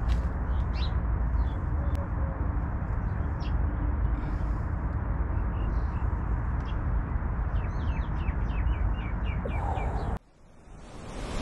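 Birds chirping in short scattered calls over a steady low rumble, with a quick run of about eight short falling chirps near the end. About ten seconds in the sound cuts off abruptly and a rush of surf fades up.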